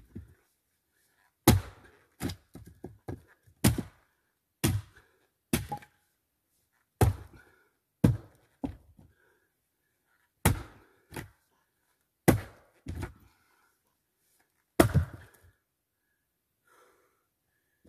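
Fiskars X25 splitting axe striking Australian eucalyptus hardwood, about ten heavy blows a second or two apart. Each blow is a sharp thunk followed by a few lighter knocks as the wood splits and pieces fall.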